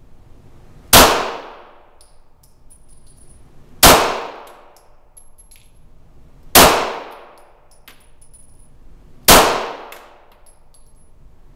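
Four gunshots about two and a half seconds apart, each a sharp loud crack that rings away over about a second. Faint high ticks come between the shots.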